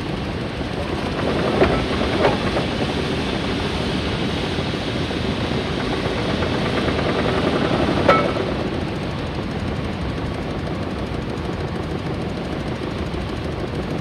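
1911 triple-expansion marine-type steam engine running, a fast, dense mechanical beat. Three sharp knocks stand out above it, two close together about one and a half and two seconds in, and one about eight seconds in.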